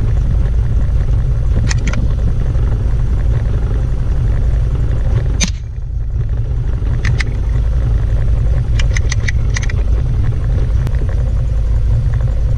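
Wind buffeting the microphone with a heavy, steady low rumble, broken by a sharp .22 LR rifle shot about halfway through. Fainter sharp cracks and clicks come near the start and in a quick cluster later on.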